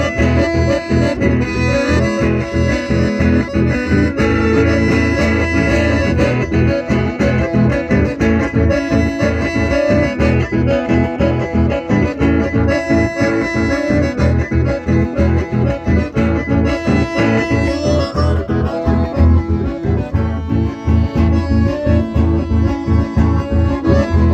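Live dance music from two accordions and a guitar playing together, with a steady beat.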